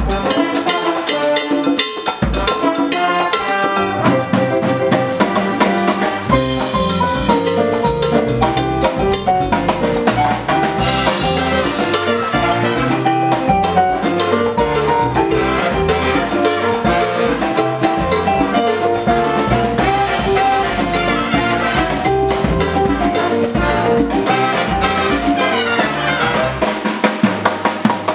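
Big band playing a Latin tune live: saxophones, trumpets, piano and drum kit together over a bass line. Near the end the bass drops out and the drum kit plays sharp, loud hits.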